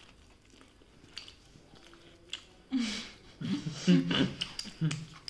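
People chewing food, with small wet mouth clicks. About three seconds in, a person's voice makes a few short sounds through the chewing.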